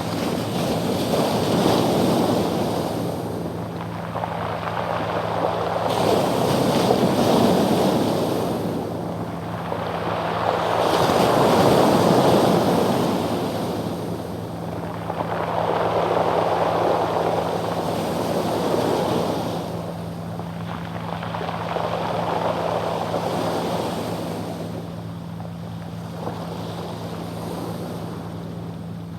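Waves washing onto a pebble beach, each swell every four to five seconds rolling and rattling the stones. Under the surf a fishing boat's engine hums steadily offshore.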